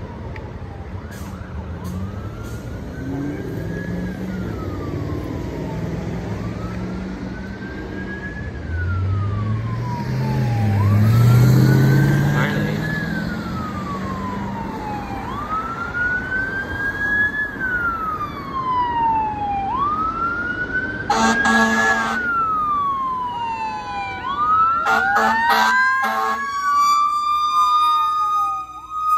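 A 2012 KME Predator fire engine's wail siren sweeping slowly up and down, about once every three to four seconds, as it approaches, with a passing pickup truck's engine loudest around a third of the way in. Two short air horn blasts come about two-thirds through and again shortly after, and a mechanical Q2B siren winds up, rising in pitch, over the last few seconds.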